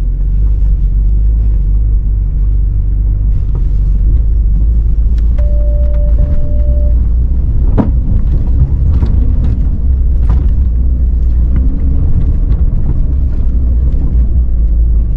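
Porsche 911 Dakar driving off-road over quarry terrain, heard from inside the car: a heavy, steady low rumble with scattered knocks and clicks from the rough ground, one sharp knock about eight seconds in, and a short steady beep a little before it.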